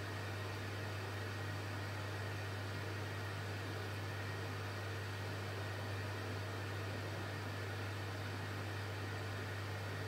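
Electrolux PerfectCare 600 front-loading washing machine running: a steady low hum under an even hiss, with no rhythm or change.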